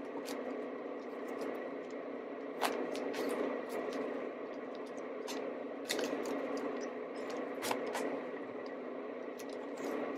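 Waxed sail twine being wrapped and pulled around three-strand rope: faint rubbing and scraping with a few sharp ticks, over a steady background hum.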